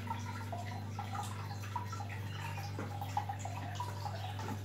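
Aquarium filter running: water trickling and bubbling in small, irregular blips over a steady low hum.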